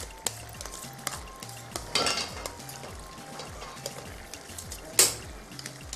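Cooking utensils clinking and scraping against a pot, with a sharp, louder clink about five seconds in, over background music with a steady low beat.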